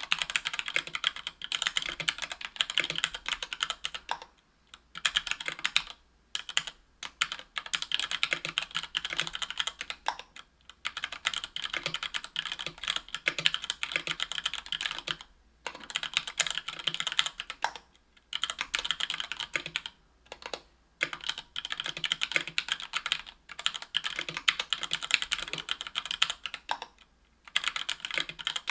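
Typing on a KBDfans Tofu 60% aluminum mechanical keyboard with stock, unlubed Gateron Yellow Ink 60 g linear switches, an aluminum plate and Cherry-profile PBT keycaps: quick runs of key clacks broken by short pauses every few seconds.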